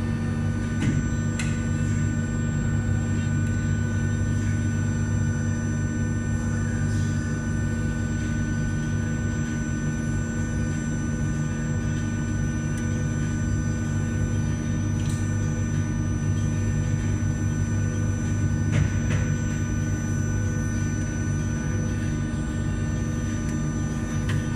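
Atlas Copco ZR145 oil-free rotary screw air compressor running steadily: a constant deep hum with several steady high whining tones above it.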